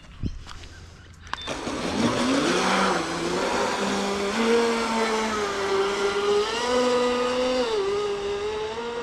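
Large electric RC speedboat's brushless motor on a 6S battery taking off: a whine that climbs steeply about a second and a half in with a rushing hiss, then holds high, surging and dipping in pitch as the throttle changes.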